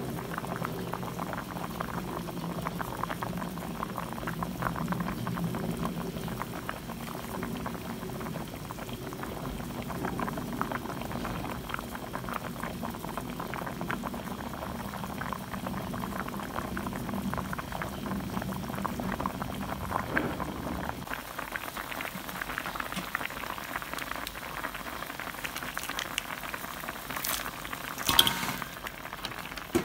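Pot of small fish simmering with onion and garlic, the liquid bubbling at a steady boil. A low hum underneath stops about two-thirds of the way in, and a brief louder clatter comes near the end.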